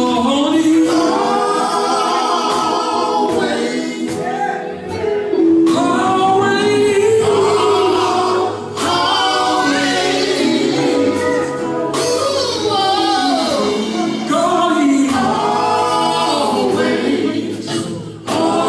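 Gospel vocal group singing, several voices together in phrases.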